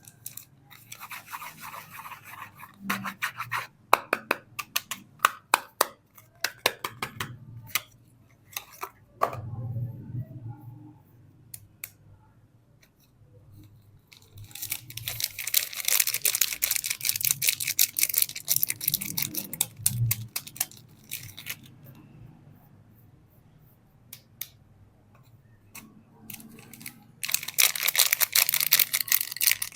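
Soap bars being unwrapped by hand: packaging rustling and crinkling in two long spells, with a run of sharp clicks and snaps in between.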